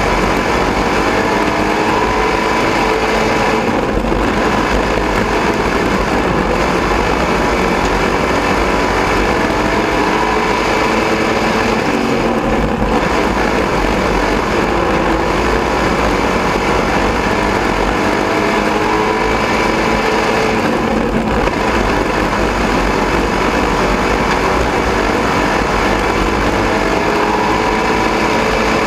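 Dirt-track race car engine running hard at racing speed, heard loud from inside the cockpit, its revs easing off and picking up again in a repeating pattern about every eight to nine seconds as it laps the oval.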